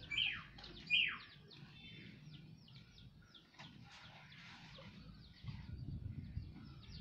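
Small birds chirping over and over in quick high notes, with two louder calls falling in pitch in the first second.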